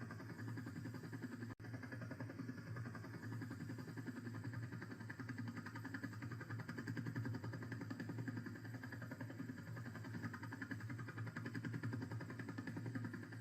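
Helicopter's engine and rotor running steadily, a dense mechanical drone with a fast pulsing beat. It drops out for an instant about a second and a half in.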